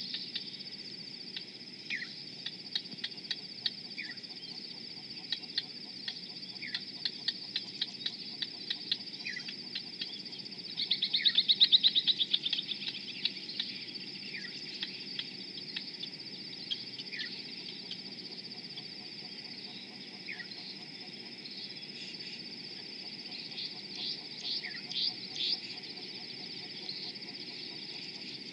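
A steady high insect trill with repeated short falling bird calls every couple of seconds and quick ticking notes. Near the middle comes a loud, rapid chattering run of bird notes, and more clusters of quick notes follow near the end.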